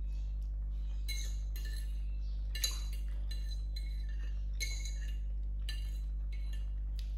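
Cutlery clinking against a dish while eating: a dozen or so light, ringing clinks at irregular intervals, the loudest about two and a half seconds in, over a steady low hum.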